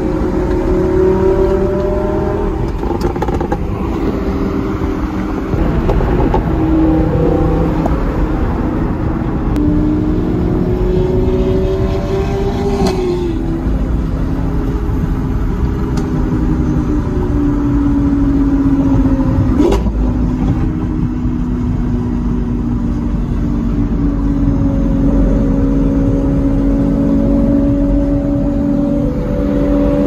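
Lamborghini Aventador SV's V12 engine running alongside, its pitch rising and falling with the throttle, heard from inside an accompanying car over road noise. There are two sharp cracks, about 13 and 20 seconds in, where the engine pitch drops suddenly, as at a gear change.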